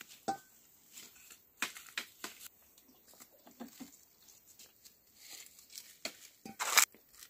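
Dry leaves and twigs crackling and rustling in scattered short crunches as sticks are handled on the ground, with a short ringing clink near the start and one louder crunch near the end.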